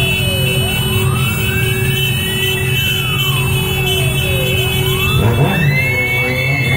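A siren wailing in slow rises and falls, about two seconds each way, over the steady low running of many motorcycle engines. About five seconds in, more siren tones overlap it.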